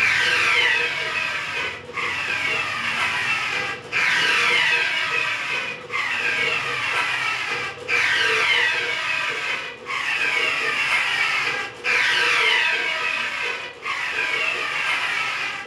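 Large-format inkjet printer's print-head carriage sweeping back and forth across the banner, with a rubbing, whirring sound. The passes repeat about every two seconds, each with a short dip at the turn.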